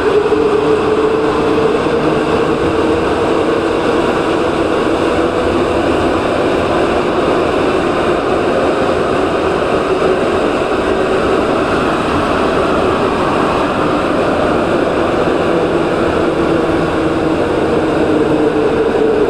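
Rubber-tyred Santiago Metro NS-2004 train running at speed through a tunnel, heard from inside the driver's cab. It makes a steady rumble with a constant drone from the running gear and motors.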